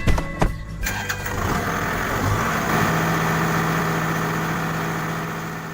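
A few sharp clicks, then an engine starts and settles into a steady run with a low, even hum.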